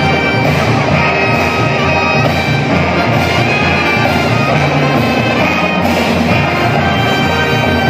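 Drum and bugle corps playing: sustained brass tones over a moving bass line, with a steady drum beat.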